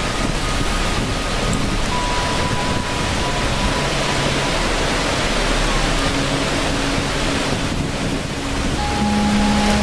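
Steady, dense rushing-water noise, like heavy rain or a waterfall, with soft held music notes layered over it. The notes change every few seconds, and a new lower chord comes in near the end.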